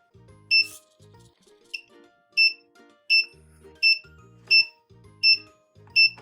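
Electronic beeper on a timed servo level-crossing kit sounding short, high, identical beeps about once every three-quarters of a second, the signal that the barrier is operating. Light background music runs underneath.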